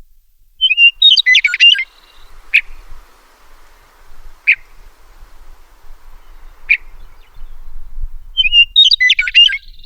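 Meadowlark singing: a quick, jumbled phrase of warbled notes, then three short sharp call notes about two seconds apart, then the same song phrase again near the end.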